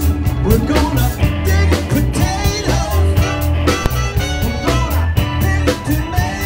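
A live band playing an upbeat rock-and-soul number: electric bass and drum kit keep a steady pulsing beat under guitar, with a woman singing.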